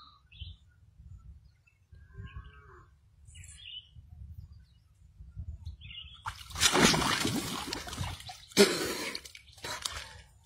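Faint bird chirps, then about six seconds in three loud bursts of splashing liquid, the first lasting about two seconds.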